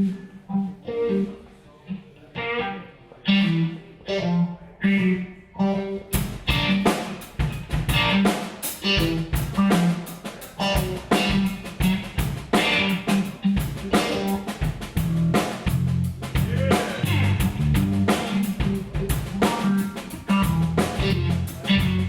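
A live band playing the instrumental intro of a blues-funk song. For about six seconds a guitar picks out a riff alone. Then the drum kit and the rest of the band come in with a steady groove.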